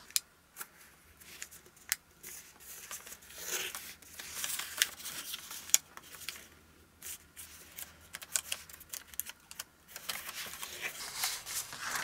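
A square of kami origami paper being folded, pinched and creased by hand: intermittent rustling and crinkling with scattered small clicks.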